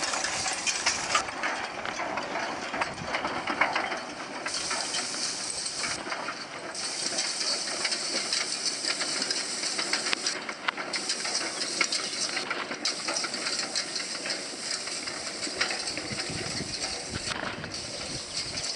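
Mule-drawn side-delivery hay rake working through cut hay: a steady hiss and swish with a constant light clatter of the ground-driven reel and tines, harness chains and hooves.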